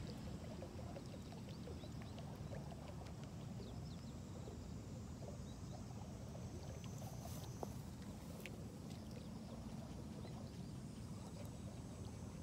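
Faint outdoor ambience: a steady low rumble with many small high ticks and chirps scattered through it, and one sharper tick near the end.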